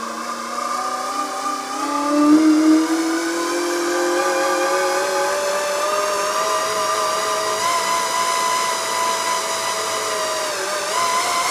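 Motenergy ME1115 permanent-magnet AC motor running on a bench under a Sevcon Size 6 controller, giving a whine of several tones together. It climbs steadily in pitch as the motor speeds up over the first several seconds, holds level, dips briefly near the end and climbs again.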